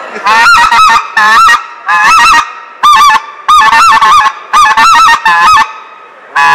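Hand-held goose call blown in quick runs of short honks and clucks, each note rising and falling in pitch and many breaking into two, with brief pauses between the runs.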